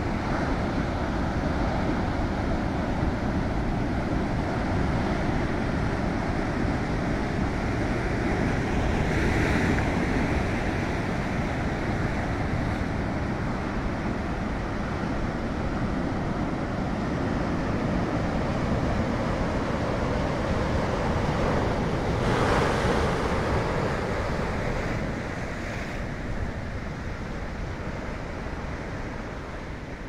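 Heavy ocean surf breaking over shoreline rocks: a continuous rushing wash of foaming water, with louder crashes about nine seconds in and again about twenty-two seconds in, fading somewhat near the end.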